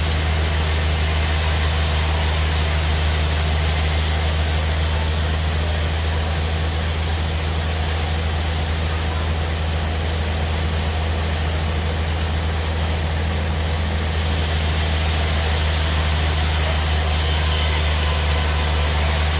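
Sawmill bandsaw machinery running steadily, with a strong, deep, unchanging hum under a constant hiss.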